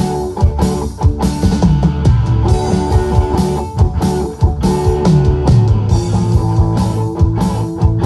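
Live rock band playing an instrumental passage: electric guitars and bass guitar over a drum kit, with steady drum hits and no vocals.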